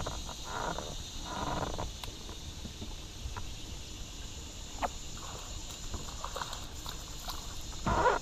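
Steady chorus of summer insects from the surrounding woods, with low wind rumble on the microphone and a few short clicks and knocks, louder near the end.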